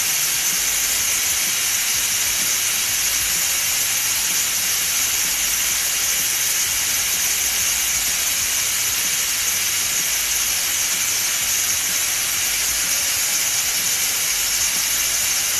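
Steam hissing steadily out of a Chefking electric pressure cooker's release valve while its button is held down: the high pressure left after cooking is being vented so the lid can be opened.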